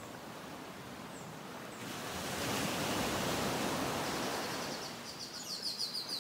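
Ocean waves washing onto a beach, one wave building about two seconds in and fading away. Near the end comes a quick run of high chirps.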